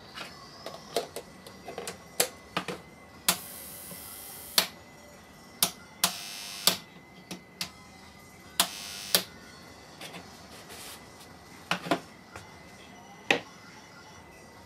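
High-voltage sparks snapping through a heap of magnesium shavings: irregular sharp cracks, and three sustained buzzing arcs, the first about three seconds in lasting over a second, the others shorter, around six and nine seconds in. A faint steady high whine runs underneath.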